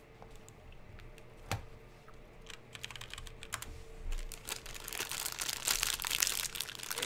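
A stack of 2020 Panini Donruss baseball cards handled and flicked through by hand: light clicks and card-on-card slides, a few at first, then a quick, busy run of them from about a third of the way in.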